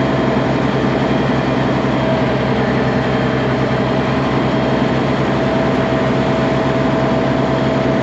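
Heavy diesel engine running steadily close to the microphone: a low, even pulsing with a steady high whine over it.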